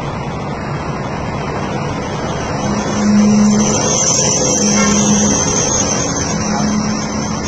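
Truck and flatbed trailer running with a steady, noisy rumble. A low hum swells and fades three times, about three, five and seven seconds in.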